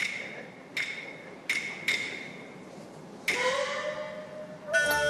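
Chinese opera percussion: sharp, ringing wood-block knocks, four in the first two seconds, then a louder stroke whose ringing tone rises in pitch. Near the end the opera's string and wind accompaniment comes in.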